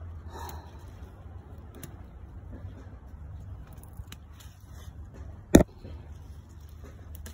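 Green beans being picked by hand off the vine: faint rustling and small clicks, with one sharp, loud snap about five and a half seconds in.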